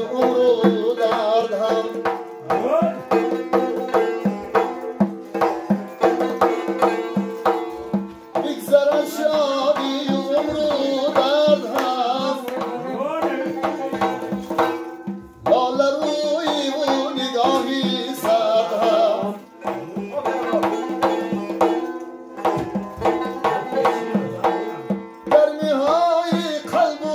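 Live folk music: a large frame drum struck by hand in a quick, steady rhythm, a plucked long-necked lute, and a man singing a melodic line with a few short pauses.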